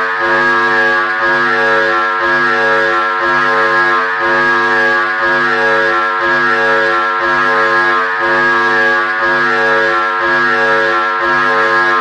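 Mock emergency-alert alarm tone: a loud, steady, dense chord-like drone with its lower notes pulsing on and off about once a second.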